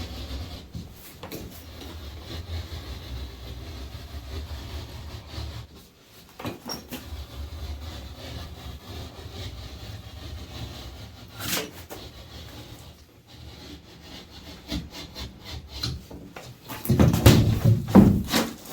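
Rubbing and scraping of drywall repair work on plasterboard, with scattered clicks over a low steady hum, and a louder run of knocks near the end.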